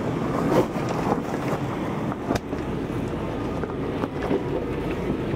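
Off-road 4x4's engine running at low revs as it crawls over rocks, with wind noise on the microphone. A sharp click sounds about two and a half seconds in.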